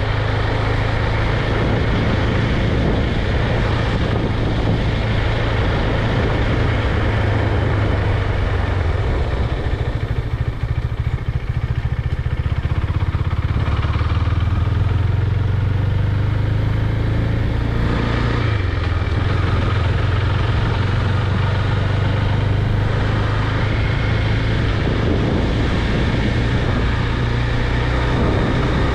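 KTM 390 Duke's single-cylinder engine running under way, with wind and road noise. The engine note eases off about a third of the way in, then picks up again past the middle.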